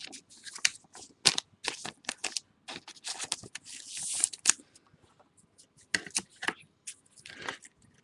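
Plastic crinkling and rustling as trading cards are handled in their sleeves and wrappers: a string of short crinkles, with a longer rustle about three to four and a half seconds in.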